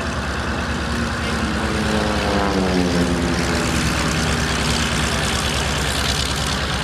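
F4U-4 Corsair's 18-cylinder Pratt & Whitney R-2800 radial engine and propeller running at taxi power as the fighter rolls along the runway. Its engine tone drops in pitch as it passes, between about two and four seconds in.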